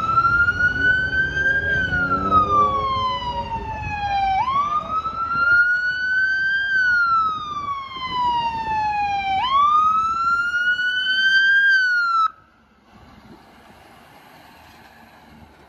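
Ambulance siren in wail mode: a loud tone that rises and falls slowly, about five seconds per cycle, then cuts off suddenly about twelve seconds in.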